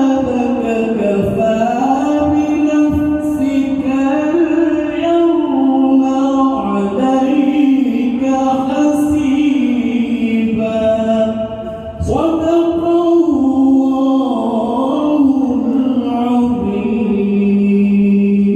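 A male qari reciting the Quran in a melodic, chanted tajwid style, with long ornamented held notes. There is a short pause for breath about twelve seconds in.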